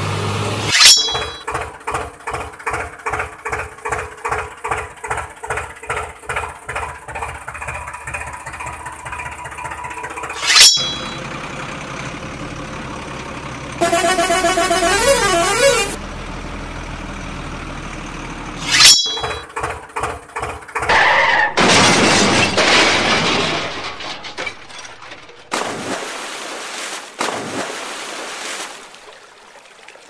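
A string of added vehicle sound effects: short horn blasts, a rhythmic pulsing sound about twice a second for roughly ten seconds, and a warbling, rising-and-falling siren-like tone, followed by stretches of noisy hiss.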